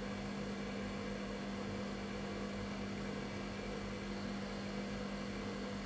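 Steady electrical hum over a faint hiss, with no distinct events: the bench's background tone between explanations.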